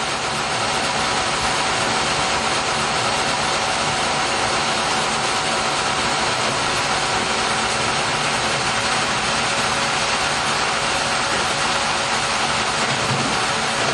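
Sawmill machinery running steadily: a constant mechanical noise with a faint steady tone over it.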